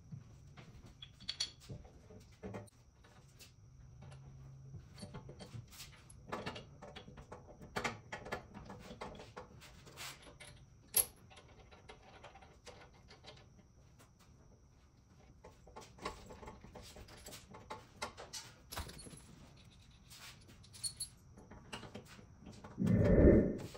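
Scattered light clicks and metallic clinks of bolts, parts and tools being handled while assembling a mini trike. Near the end a dog makes one short, louder vocal sound.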